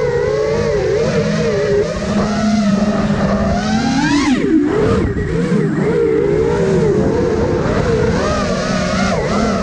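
Motors and propellers of a 5-inch FPV quadcopter (iFlight Nazgul Evoque F5) whining in flight, the pitch wavering with throttle. About four seconds in the whine rises sharply, then drops away before settling back to its wavering.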